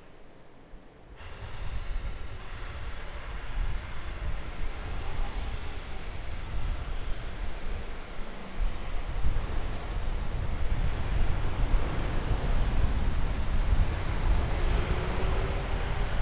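Street ambience of traffic noise, with wind buffeting the microphone in a low, uneven rumble.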